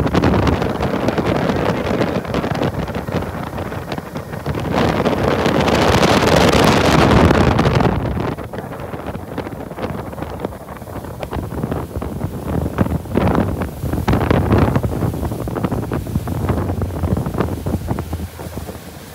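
Wind buffeting an unshielded phone microphone on a small motorboat under way, over the rush of the boat through the water. The wind noise is strongest at first, drops about eight seconds in, and then comes in gusts.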